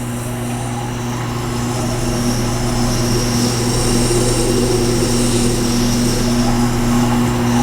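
Tormek T-8 wet grinder running with a steady motor hum while a Leatherman blade is ground on its stone. The scraping hiss of steel on the wet stone grows stronger about two seconds in.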